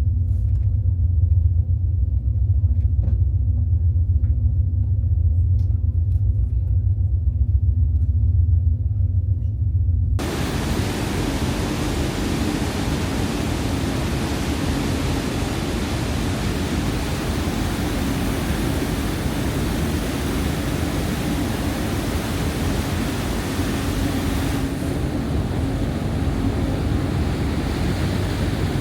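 Steady low drone of a high-speed catamaran ferry's engines. About ten seconds in it switches abruptly to a steady rushing of wind and water with the engine hum still underneath.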